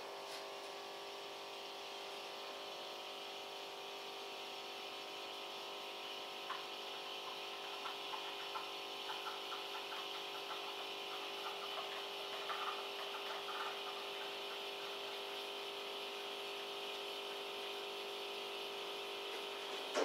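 Krups XP 3440 espresso machine's pump humming steadily as it brews espresso into two cups, with faint irregular crackles midway. It stops with a click at the end as the machine is switched off.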